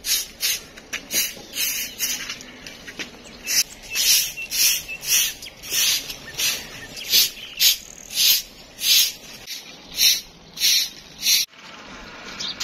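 Short hand broom swept over a concrete floor in quick, brisk strokes, about two scratchy swishes a second, stopping near the end.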